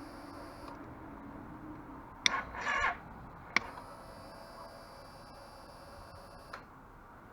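2013 Suzuki V-Strom 650 failing to start: a sharp click and a half-second rattling buzz as the starter is tried, with no cranking and no engine catching. Then another click and a faint steady whine for about three seconds, ending in a small click, as the ignition is switched on and the fuel pump primes.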